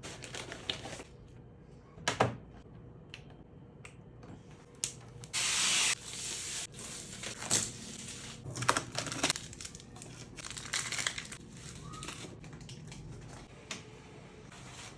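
3D-printer packaging being unpacked by hand: crinkling, tearing and rustling of plastic and cardboard, with scattered knocks and clicks. A loud rushing rip a little past five seconds in lasts under a second, and more bursts of rustling follow.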